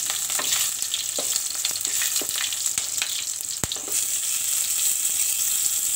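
Hot refined oil sizzling and crackling in a karahi as mustard seeds, cumin, curry leaves and chopped green chillies fry for the tempering, stirred with a wooden spatula. One sharp click about halfway through.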